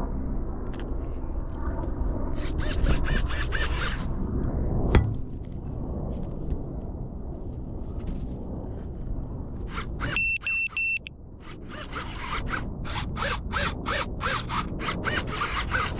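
Low rumble and handling noise, a sharp knock about five seconds in, then three short, loud, high electronic beeps just after ten seconds, followed by a run of rapid clicks.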